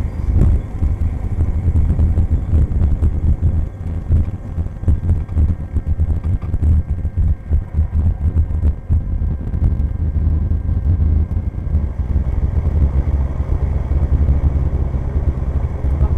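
Cessna 172's four-cylinder piston engine running at low power as the plane rolls out on the runway after landing, heard from inside the cockpit as a loud, uneven low rumble. About thirteen seconds in the engine note grows steadier.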